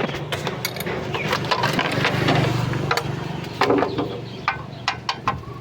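A quick run of sharp clicks and knocks over a steady low hum.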